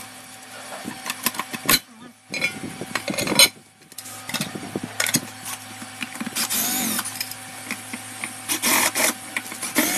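Aluminium housing of a 2000 W pure sine wave power inverter being opened by hand: the metal case scrapes and rattles as the cover is slid off the circuit board, with a sharp knock about three and a half seconds in. A faint steady hum runs underneath.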